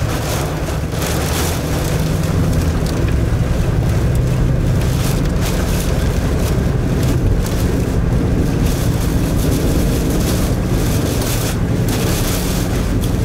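Steady rumble and hiss heard inside a car driving on a wet highway in a storm: road and engine noise, with wind against the car.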